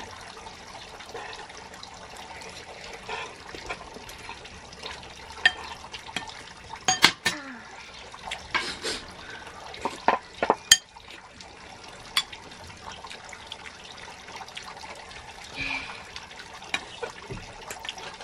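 Steady trickle of a backyard water fountain, with a metal spoon and fork clinking against a ceramic bowl several times around the middle.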